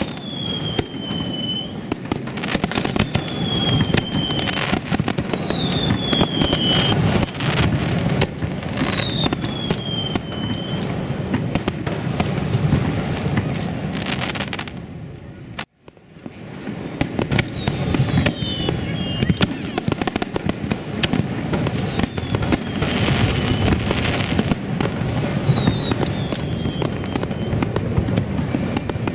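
Aerial fireworks shells bursting in quick succession, sharp bangs and crackles over a continuous low rumble, with a short falling whistle recurring every second or two. The sound drops abruptly to silence a little past halfway, then picks up again.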